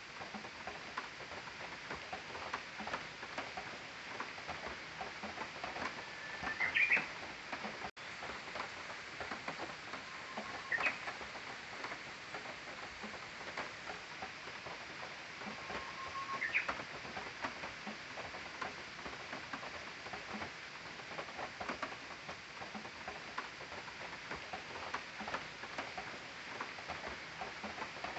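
Japanese bush warbler (uguisu) singing its 'hō-hokekyo' song three times, each a held whistled note ending in a quick rising flourish, about four to six seconds apart. A constant fine crackle runs underneath.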